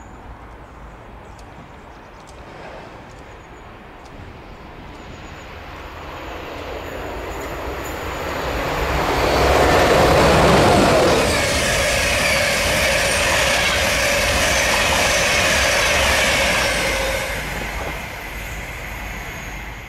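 InterCity 225 train with a Class 91 electric locomotive running through a station at speed without stopping. Its sound builds over several seconds, is loudest and steady for several seconds with a held tone in the rush of wheels on rail, then fades.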